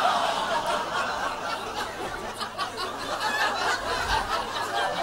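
Comedy club audience laughing after a punchline, loudest at the start and then dying down.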